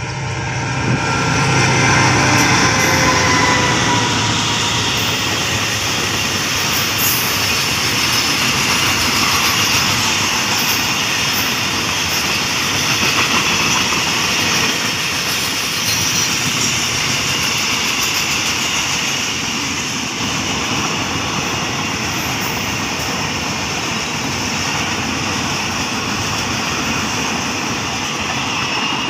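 Freight train passing close by: the CSR diesel-electric locomotive's engine note falls in pitch as it goes past in the first few seconds. A long string of loaded container wagons follows, with the steady rolling noise of wheels on the rails and occasional brief high squeaks.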